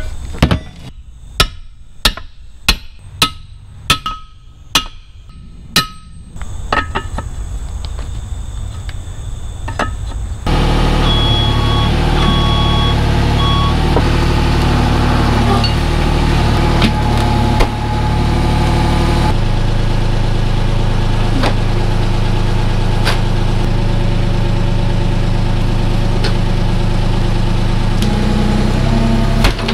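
Hammer blows on a steel tractor wheel rim: about nine sharp ringing clangs roughly every half second over the first six seconds, working the tire loose from the rim. Then, about a third of the way in, a mini excavator's engine runs steadily, with three short beeps soon after it comes in, as its bucket presses down on the tire to break the bead; the engine note shifts about two-thirds of the way through.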